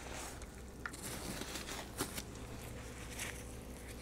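Cookie dough being stirred in a mixing bowl as coconut oil is worked in. The sound is faint, irregular scraping with a few soft clicks of the utensil against the bowl.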